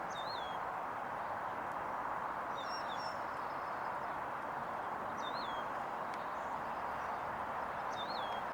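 Steady outdoor background noise, with a small bird calling over it: a short whistled note that rises then falls, given three times, plus a brief tangle of higher notes about three seconds in.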